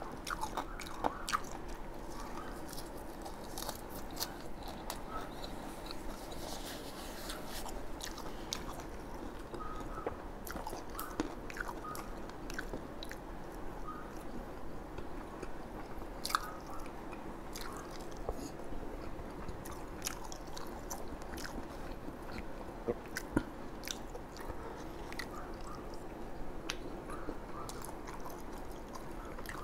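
Close-up chewing and biting as a man eats bún đậu mắm tôm (rice vermicelli, fried tofu and herbs), with scattered small clicks and crunches.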